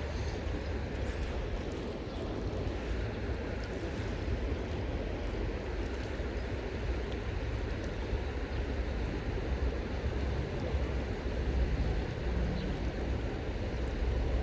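Steady rush of river current flowing past, with a low rumble underneath.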